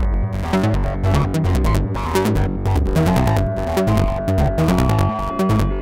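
Make Noise System Cartesian Eurorack modular synthesizer playing a sequenced pattern of several voices at once: a pulsing bass line under short, clicky pitched notes. A held tone comes in about three seconds in, and a second, higher one joins near the end.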